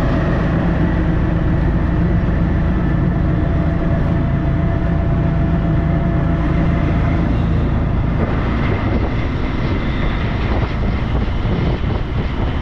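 Auto-rickshaw running steadily under way, its small engine heard loud and close from inside the open rear passenger cabin, along with the rush of the ride.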